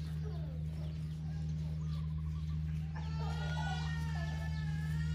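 A rooster crows once, a long call starting about three seconds in, over a steady low hum, with a few short bird chirps before it.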